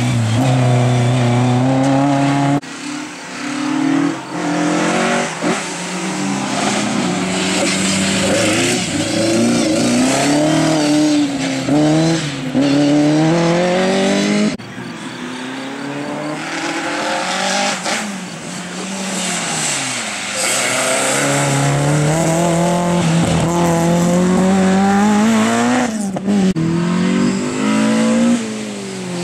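Racing car engines revving hard through a cone slalom, the pitch climbing and dropping again and again with gear changes and braking for the turns. The sound changes abruptly twice, about two and a half seconds in and about halfway through, as one car gives way to another.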